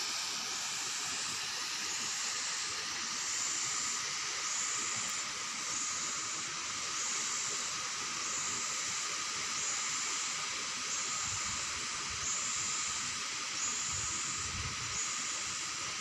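Steady rushing hiss of a distant waterfall, with insects chirring in a high pulse that repeats about once a second.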